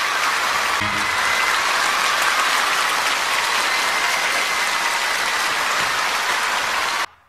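Audience applauding at the end of a stage performance, a steady dense clatter of clapping that cuts off suddenly near the end.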